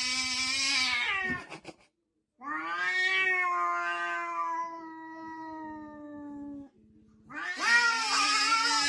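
Cat yowling in long, drawn-out meows: one call ends about a second and a half in, a second lasts about four seconds, and a third begins near the end.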